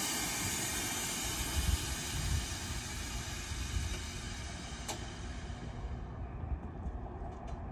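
Air Lift 3P air suspension airing out on a Mitsubishi Evo X: a loud hiss of compressed air venting from the bags as the car drops to the ground, fading gradually. A single click comes about five seconds in.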